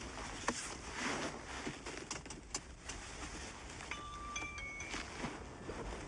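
Rustle of a jacket being adjusted, with scattered small clicks. About four seconds in, a few brief, thin high tones sound, some stepping in pitch.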